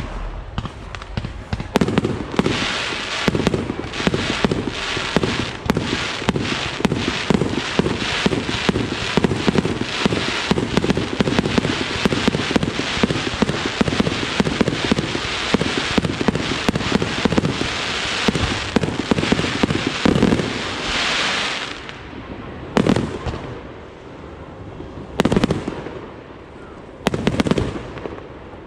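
Fireworks display: a fast, dense barrage of sharp bangs and crackles for about twenty seconds. It then thins out to single loud bangs about two seconds apart.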